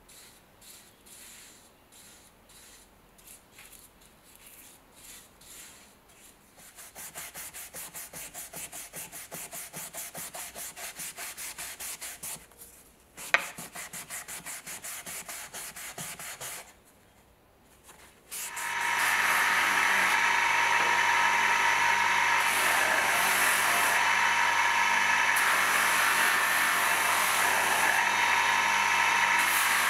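Soft paintbrush strokes on a wooden hammer handle. Then fast, even hand-rubbing on the wood with a pad, broken by a single sharp click. After a short pause, an electric bench buffer's motor starts and runs steadily and loudly for the rest of the time.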